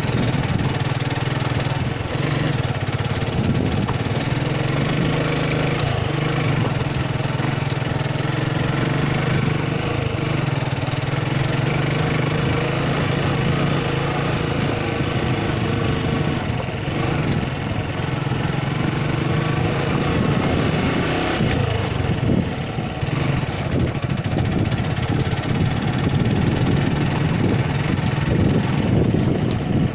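Suzuki Gixxer's single-cylinder engine running at low speed under a steady hiss while the motorcycle is ridden up a rough gravel trail. Its note wavers with the throttle, dipping briefly about two-thirds of the way through.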